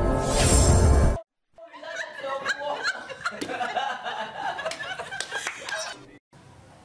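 A loud music sting that cuts off about a second in, then a group of people laughing and chattering for about four seconds, stopping shortly before the end.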